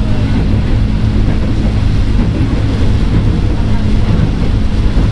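Former Tokyu 8000 series electric commuter train running on the line, heard from inside the car: a steady, loud rumble of wheels and running gear on the track, with a faint steady hum.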